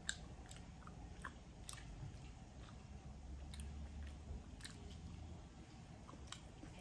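A person chewing a mouthful of food close to the microphone, faint, with scattered short wet mouth clicks.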